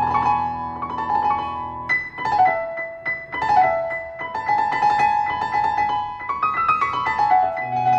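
Solo piano score music: a run of quick repeated notes in the middle range over low held bass notes. The bass drops out about two seconds in and comes back near the end.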